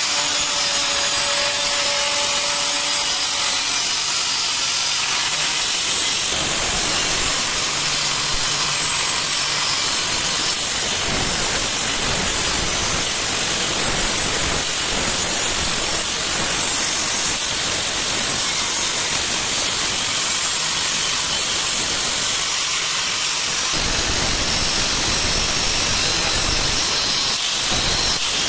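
Electric angle grinder with a thin disc cutting into a steel plate: a steady, unbroken metal-grinding hiss.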